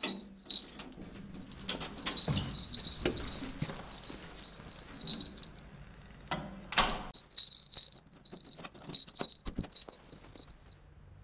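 A room key on its tag jangles and rattles against a hotel room door's knob and lock as the door is opened and pulled shut. There are repeated metal clicks, and a sharp latch click about seven seconds in is the loudest.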